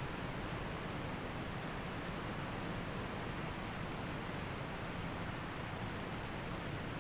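Waterfall and creek water rushing in a steady, even roar.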